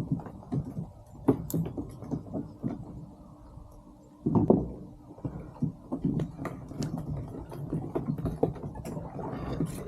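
Irregular knocks, taps and scuffs on a kayak, coming every fraction of a second, with a louder cluster of knocks about four and a half seconds in.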